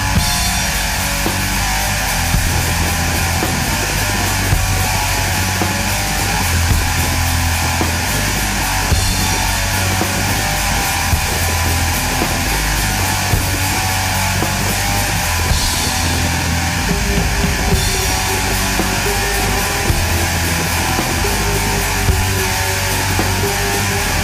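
Loud heavy rock music with electric guitar.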